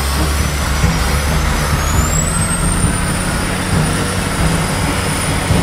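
Oshkosh 6x6 military truck's diesel engine pulling hard up a dirt slope, a steady heavy rumble under broad noise. A thin high whine rises about two seconds in and then holds steady.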